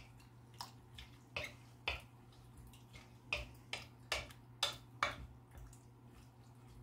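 Wooden spoon stirring a wet shrimp-and-tomato mixture in a glass bowl: about ten soft, irregular clicks and knocks of the spoon against the glass over the first five seconds.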